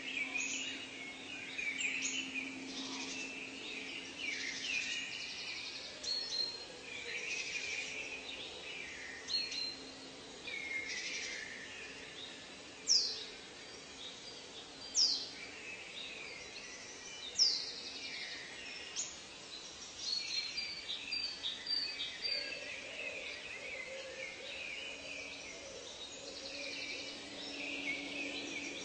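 Chorus of many tropical forest birds calling and trilling, with three loud sweeping whistles about halfway through. A faint steady low drone runs underneath.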